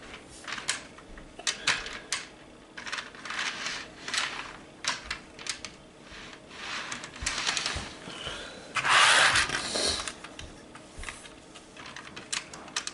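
HO scale model train cars being handled: scattered light clicks, clacks and rustling, loudest about nine seconds in.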